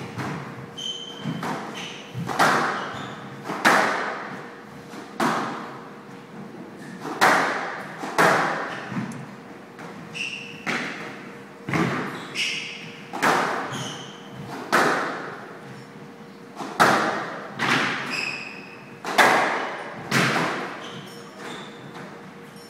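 A squash rally: the ball is struck by rackets and smacks off the walls about once every second or so, each hit echoing in the hall. Short high squeaks of court shoes come between the hits.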